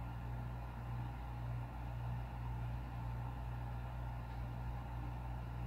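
Steady low mechanical hum with a light hiss underneath, even throughout: the background drone of a motor or appliance running in the room.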